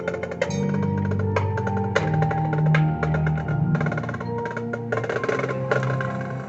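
High school marching band playing its field show: many sharp percussion strikes over sustained low chords, with melodic lines above.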